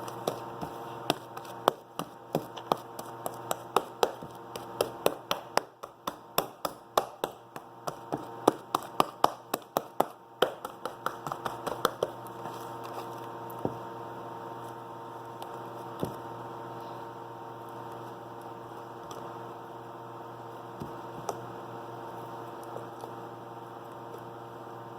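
Sticky slime being kneaded and slapped against a tabletop by hand, giving quick sharp taps and squishes about two or three a second for the first dozen seconds, then only a few taps. A steady electrical hum runs underneath.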